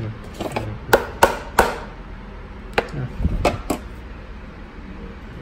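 Tempered glass screen protector for an iPhone XR being struck in a durability test: sharp knocks, three about a second in, then a quicker cluster of four or five a couple of seconds later. The glass holds up without cracking.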